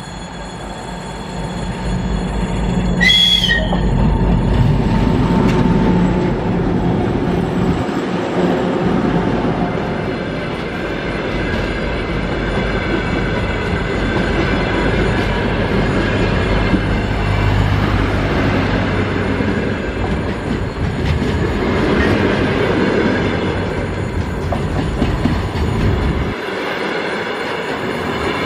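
A 2M62 twin-section diesel locomotive's two-stroke diesel engines rumble as it passes close by at the head of a track-maintenance train, with a brief high-pitched tone about three seconds in. Flatcars and track machines then roll past on the rails.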